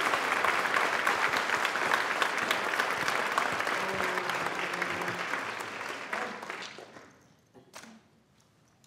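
Large audience applauding, the clapping fading out about seven seconds in and leaving a few last scattered claps.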